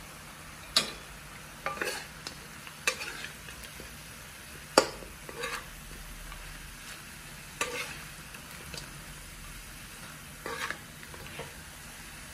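Meat and sliced ginger frying in a wok with a steady sizzle, while a spatula stirs and turns it, scraping and knocking sharply against the wok several times, the loudest knock about five seconds in.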